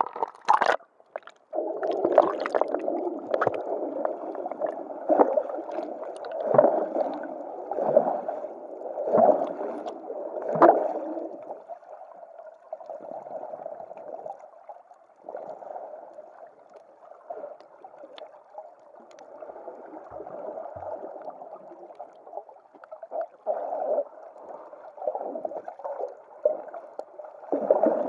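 Water heard underwater: a splash as the microphone goes under, then muffled sloshing and gurgling. Surges come about every second and a half through the first half, then the water noise turns quieter and more uneven.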